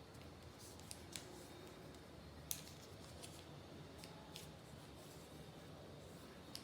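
A square sheet of origami paper being folded and creased by hand: faint rustling with a few short, sharp paper crackles, the loudest about two and a half seconds in.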